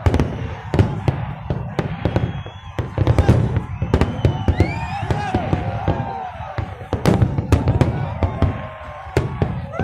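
Fireworks display: a rapid, continuous series of bangs and crackles over a low rumble.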